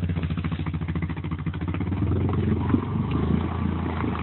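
Yamaha Grizzly 700 ATV's single-cylinder engine running with a steady rapid pulse while the quad sits sunk deep in creek water, its wheels churning and splashing the water.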